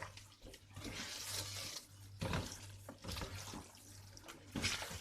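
Fried chicken, onions and masala sizzling in a pan as they are stirred, with a few short scrapes and knocks of the spoon against the pan.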